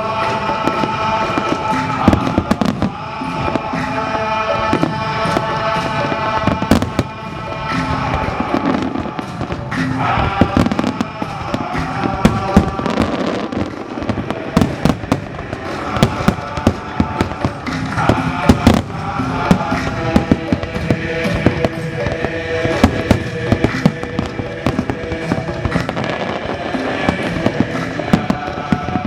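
Fireworks display: a run of sharp bangs and crackles, irregular and frequent, over music playing with sustained melodic tones.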